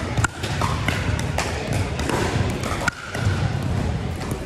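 Pickleball paddles striking a plastic ball: repeated sharp pops at irregular intervals from this and neighbouring courts, over a steady background noise in a large indoor hall.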